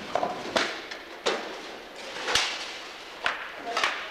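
Practice weapon sticks striking armour and shields in sparring, five sharp cracks about a second apart, echoing in a large hall.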